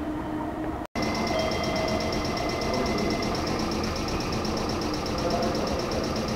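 Steady mechanical running noise with a faint high, rapidly pulsing tone, broken by a short dropout about a second in where the recording cuts.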